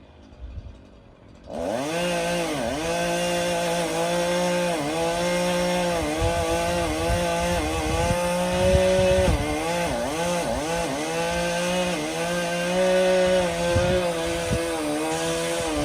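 Chainsaw running hard, starting abruptly about a second and a half in, its engine pitch sagging and recovering every second or two as it bogs down in the cut.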